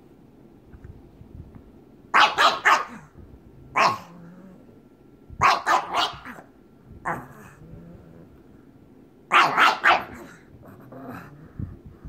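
A pug barking in three quick clusters of three or four sharp barks, with a single bark between each cluster: play barking, one pug inviting the other to play from a play bow.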